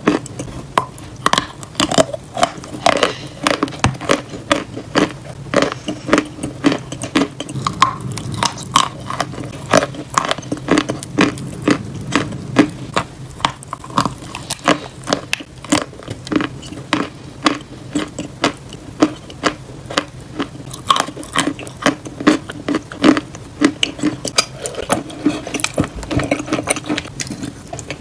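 Close-up crunching and chewing of wet, paste-coated chalk: sharp crunches several times a second, mixed with pasty chewing.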